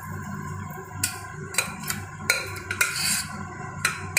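A spatula scraping and knocking against a steel pressure cooker pot as chicken pieces and their cooking liquid are tipped into a pan of gravy, with about five sharp clinks over a low, steady hum.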